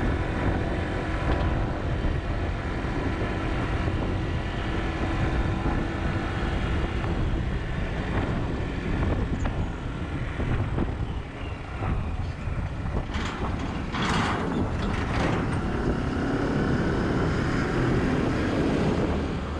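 A vehicle driving along a rough, unpaved road: steady engine and road rumble with some wind on the microphone, and a few brief louder rushes of noise about two-thirds of the way through.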